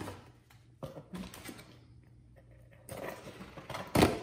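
Handling noise from a cardboard box and its packaging: scattered rustles and light clicks, with a sharp knock about four seconds in, the loudest sound.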